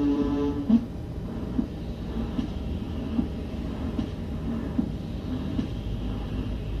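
A steady low mechanical rumble with a light click repeating about every 0.8 seconds. A held tone with overtones stops just under a second in.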